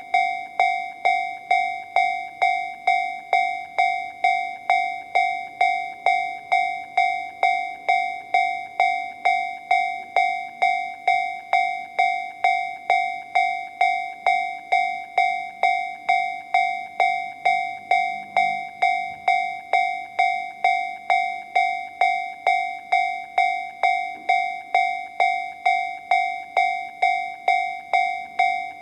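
Japanese level-crossing alarm sound generator (Toho Denki TA3-VR) playing the Tobu Railway 'C' warning tone: an electronic bell-like ding repeated evenly about twice a second, each ding starting sharply and fading before the next. The volume stays the same throughout.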